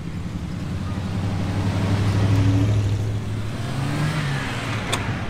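Jeeps rolling slowly past one after another, engines running. The sound swells as one passes close about two seconds in, and an engine revs up briefly near the four-second mark.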